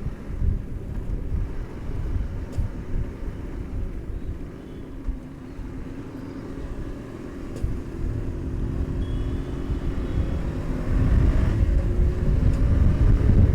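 Kawasaki Z900's inline-four engine running on the move, with wind rumbling on the microphone. From about eight seconds in, the engine pitch climbs steadily and it gets louder as the bike accelerates.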